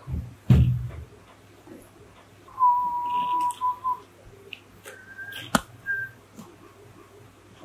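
Cartoon-style sound effects: a low thud, then a steady whistle held for about a second and a half, then a sharp click between two short, higher whistle notes.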